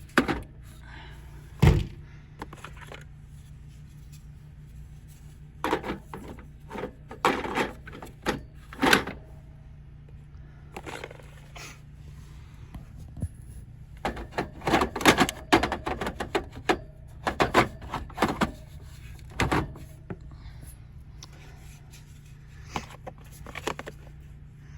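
Plastic clicks and knocks of DeWalt power-tool battery packs and chargers being handled and snapped into place, in irregular clusters, over a steady low hum.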